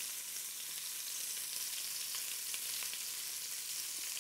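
Meatballs frying in shallow oil in a pot: a steady sizzle with scattered small crackles and pops.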